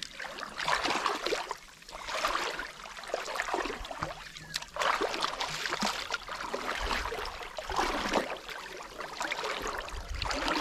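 Water splashing and sloshing in uneven surges every second or two, as when someone works a fishing net in a shallow pond.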